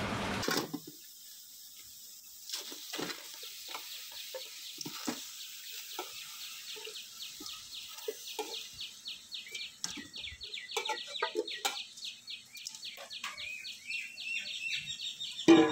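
Birds chirping over and over in quick short high calls, with a few soft knocks mixed in.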